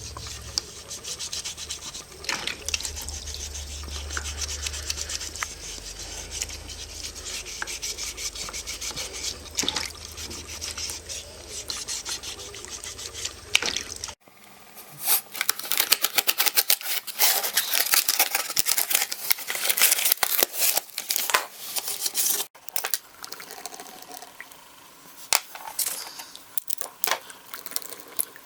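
Repeated rubbing and scraping strokes of restoration handwork, with a low hum under the first half. The sound cuts off abruptly about halfway and again near the end; after the first cut the strokes are sharper and more separate.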